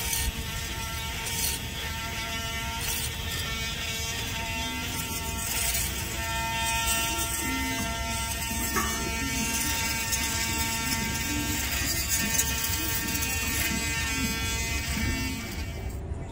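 A steady electric buzz, like a small motor running, holding one even pitch throughout.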